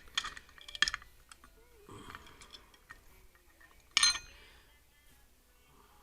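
Small metal hard-drive parts and a screwdriver clicking and clinking as they are handled. About four seconds in comes one loud metallic clack with a brief ring.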